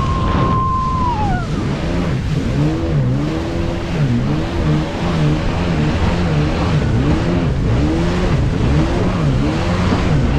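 Jet ski engine running hard at speed, its pitch rising and falling about once a second as it turns and skips over the waves, over the rush of water spray and wind. A high whine near the start drops away about a second in.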